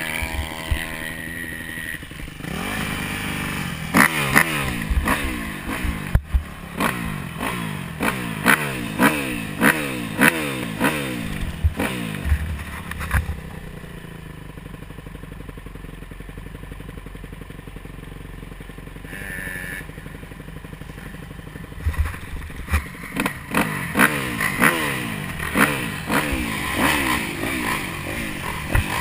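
Motocross dirt bike engine revving in repeated short rising surges, about one a second, as the bike is ridden over a dirt track. Mid-way it settles to a lower, steady run for several seconds, then the quick surges start again near the end.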